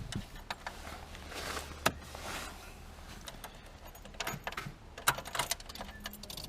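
Car ignition key and controls being handled in the cabin: scattered sharp clicks and a light key jingle, over a low hum that fades out about three seconds in.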